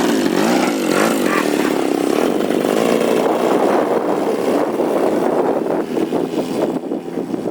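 Engine of a 30%-scale radio-controlled Super Decathlon model airplane running steadily, its pitch shifting as it goes, and easing somewhat near the end.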